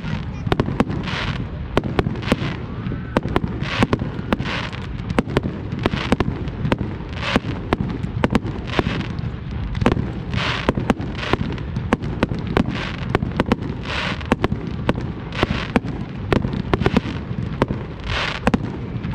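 Fireworks display going off continuously: a dense run of sharp bangs and crackles over a constant low rumble, with short hissing bursts about once a second.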